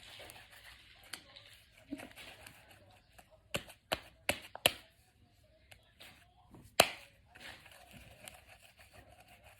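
Homemade slime handled by hand, giving a series of sharp pops and clicks: four in quick succession around the middle and a single louder one later, over faint squishy handling noise.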